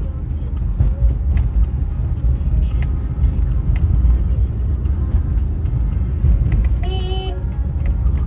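Low rumble of a car driving along a rough, patched asphalt road, heard from inside the cabin, with a few faint ticks and a brief pitched sound about seven seconds in.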